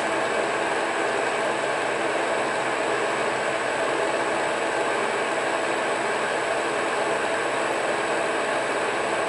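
Monarch metal lathe running steadily under power through a light final finishing cut on a steel part, a constant machine hum and whir with a steady whine in it.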